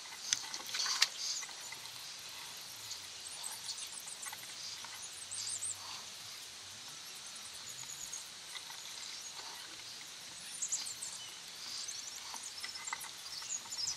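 Faint outdoor ambience with small, repeated high-pitched chirps from wildlife, and a few light clicks in the first second or so.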